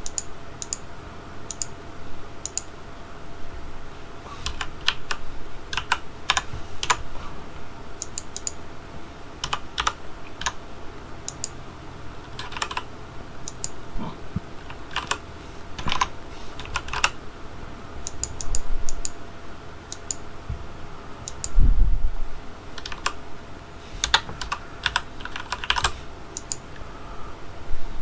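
Keys being typed on a HyperX Alloy Elite RGB mechanical keyboard fitted with double-shot PBT keycaps, in irregular runs of sharp key clicks with short pauses between them. About three quarters of the way through there is one louder, low thump.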